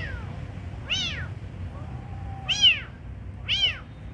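Kittens meowing: short, high-pitched cries about once a second, four or so in all, the loudest about two and a half seconds in.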